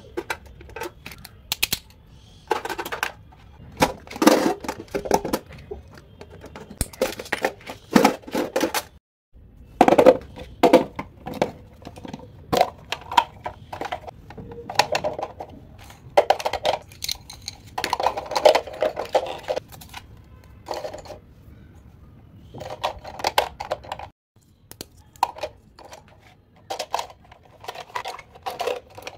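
Small stationery items being handled and packed into cases: a run of clicks, taps and light rattles in bursts, with plastic and metal knocking together, broken by two brief pauses.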